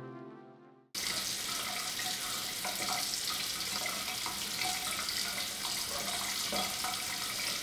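Water running steadily from a tap. It starts abruptly about a second in, just after background music fades out.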